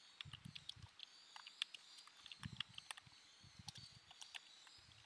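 Faint computer keyboard typing: irregular, quick key clicks, some with a soft low thump, as a short line of text is typed.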